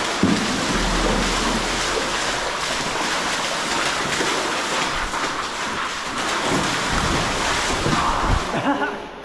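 Water splashing and sloshing for several seconds as a person wades through deep cave water, with a few low thumps; the splashing dies away near the end.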